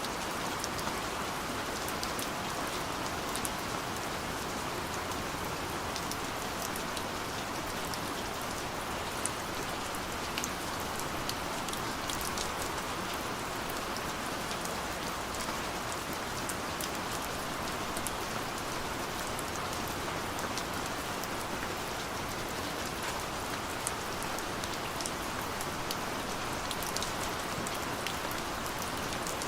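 Steady, fine, light rain falling, an even hiss with scattered sharp ticks of individual drops, without thunder.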